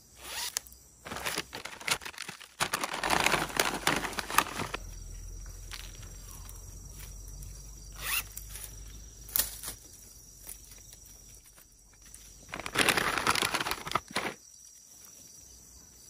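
Zipper of a collapsible mesh shrimp trap being pulled open and shut in several separate runs, with the netting rustling as it is handled.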